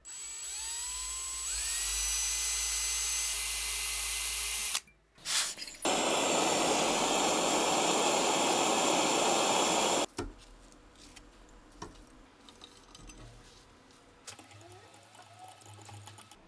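An electric drill drilling into steel. It spins up with a rising whine and runs steadily for about five seconds. After a brief pause with a couple of knocks, there is a louder, harsher stretch of about four seconds that cuts off suddenly, followed by only faint scattered clicks.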